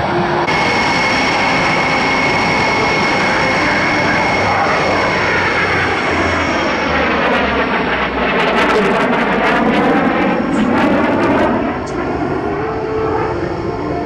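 An F-22 Raptor and a P-38 Lightning flying in formation pass overhead. Loud aircraft engine noise with a steady high whine, swelling to its loudest about nine to eleven seconds in as they go over, then easing off.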